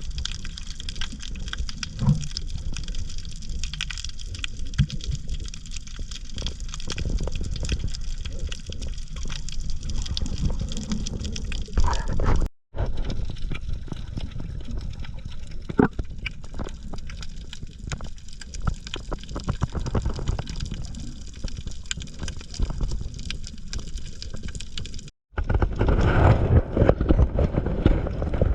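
Water sloshing and gurgling with scattered sharp clicks, breaking off abruptly twice and louder after the second break.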